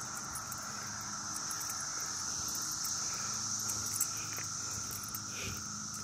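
Chorus of 17-year periodical cicadas (Brood X) droning steadily from the trees, a continuous whine at two pitches, one lower and one higher.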